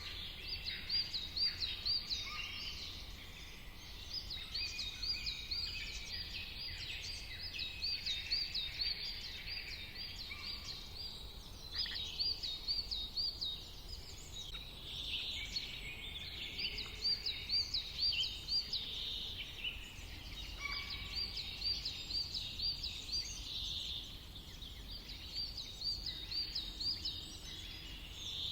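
Several songbirds singing together. One repeats a quick series of high looping notes every few seconds over the other birds' chirps and calls.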